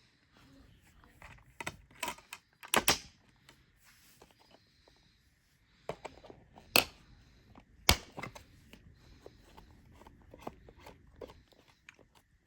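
Handling of a DVD box set and its plastic packaging: scattered crinkling and rustling with several sharp clicks and snaps, the loudest about three seconds in and twice near the middle.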